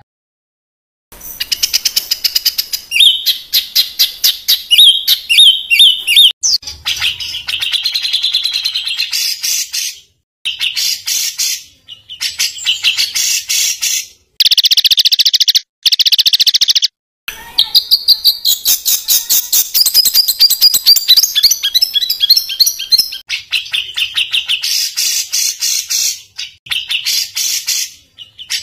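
A songbird sings rapid, harsh, rapid-fire phrases of fast repeated notes, the 'tembakan kasar' style. The phrases last a few seconds each and are broken by short, abrupt silences.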